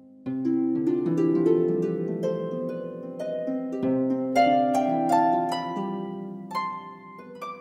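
Background music of plucked notes that ring on and overlap, with a flurry of notes coming in about a quarter second in.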